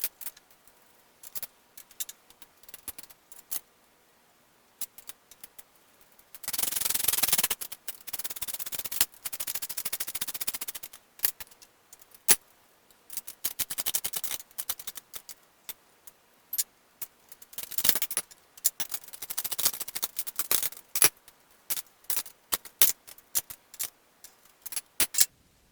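A socket ratchet clicking in quick runs as the frame-rail bolts are tightened, between single metallic clinks of tools and bolts.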